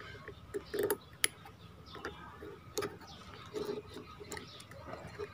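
Light, irregular metallic clicks and ticks as a small steel pick works at the spool of a Fugu Tora 4000 spinning reel during disassembly. A few duller knocks are mixed in.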